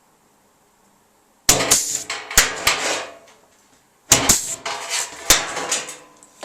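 Pneumatic air punch punching plug-weld holes in a steel repair panel, in two goes: each a sharp clack followed by the sheet metal clattering and rattling.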